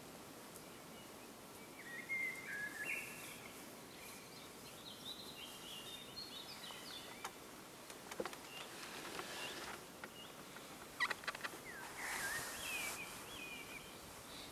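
A songbird sings in short, quick warbling phrases, three bouts spread over the stretch, over a steady outdoor hiss. A few sharp clicks come about eight and again about eleven seconds in.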